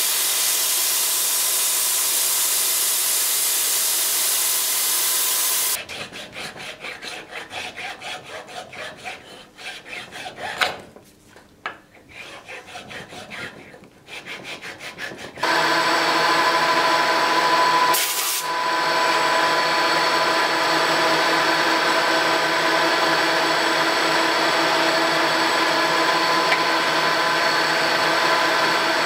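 A milling machine runs with its end mill cutting into metal held in a machine vise: a steady hiss with a whining tone. About six seconds in it stops, and a hand tool works a metal rod clamped in a bench vise in quick rasping strokes. About fifteen seconds in a metal lathe starts running with a steady hum of several tones, and a brief sharp hiss comes a few seconds after.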